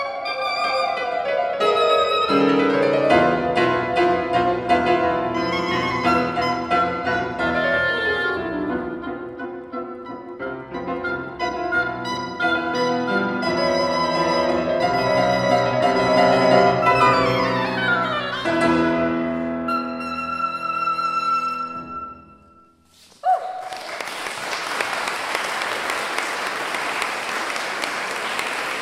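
Oboe and grand piano playing the fast closing bars of a concert piece, with quick descending runs, ending about 22 seconds in. After a moment's silence the audience breaks into steady applause.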